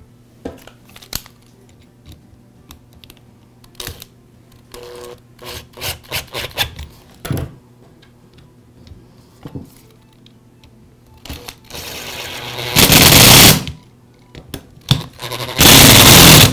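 Small clicks and taps of screws and plastic housing parts being handled, then a power drill/driver runs twice in loud bursts of about a second each, driving in the screws of the grinder's cord clamp.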